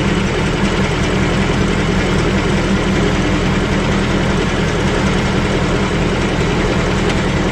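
Ford 5.0 Coyote V8 of a 2018–19 Mustang GT idling steadily. The owner is hearing an intermittent light knock, like a ruler tapping a metal cable, that he takes to be a subdued return of the noise this new engine had before.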